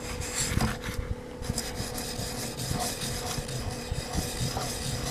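Flat side of a steel scissor blade rubbed back and forth on a wet sharpening stone, a gritty rasp in uneven strokes, over the steady hum of a small muffin fan.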